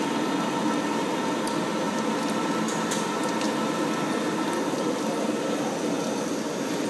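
Butyl rubber sheet extrusion line running: a steady machine hum with several constant tones, and a few faint ticks near the middle.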